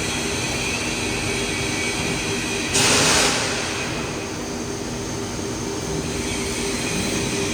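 CNC nesting machine running with a steady mechanical hum. A short, loud hiss comes about three seconds in.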